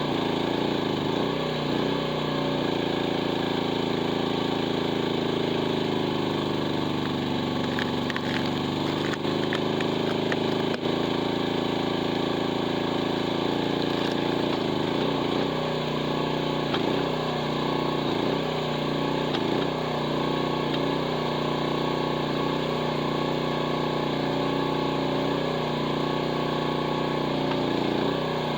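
Mini excavator engine running at high throttle, its pitch sagging and recovering several times as it bogs down under the load of the hydraulic wood splitter forcing through oak. A single sharp knock about eleven seconds in.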